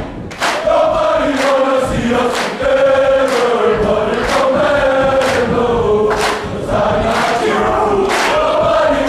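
A large group of students singing together in unison, many voices holding long notes that move from pitch to pitch.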